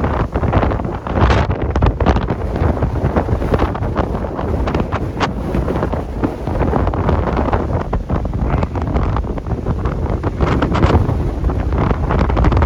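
Strong gusty wind buffeting the microphone: a loud, heavy rumble with frequent short crackling hits as the gusts strike.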